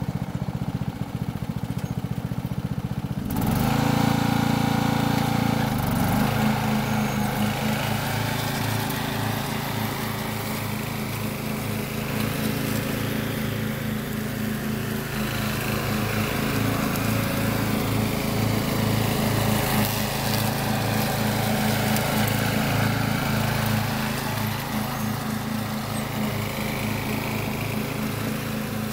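Riding lawn mower engine running at a low, steady speed, then speeding up and getting louder about three seconds in, and running steadily as the mower drives away.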